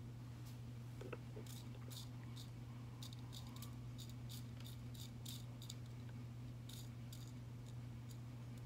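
Light, irregular clicks and ticks of a crystal picker tool and tiny nail crystals being handled against plastic nail tips, two or three a second, over a steady low electrical hum.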